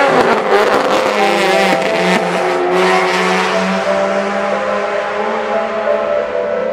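Race car engines running on the circuit, a steady drone with a hiss of noise over it.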